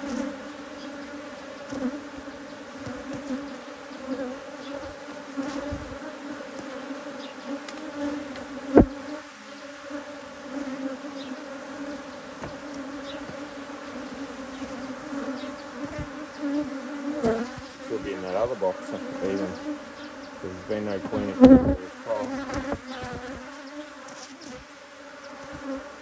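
Honey bees buzzing in a dense steady drone around an opened hive, with single bees passing close and their pitch rising and falling. The colony is agitated and defensive. Two sharp knocks stand out, one about 9 seconds in and a louder one about 21 seconds in.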